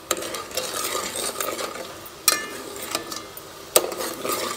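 Steel ladle stirring sugar and water in a steel pot, scraping and swirling steadily while the sugar dissolves into syrup, with sharp metal clinks against the pot about two and a quarter and three and three-quarter seconds in.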